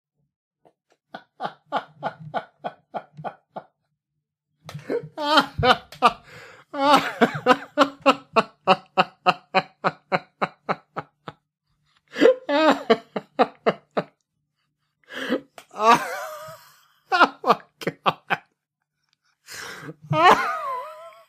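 A person laughing hard in several bouts of rapid ha-ha pulses, about five a second, with short pauses between the bouts. The longest bout runs for several seconds about a quarter of the way in.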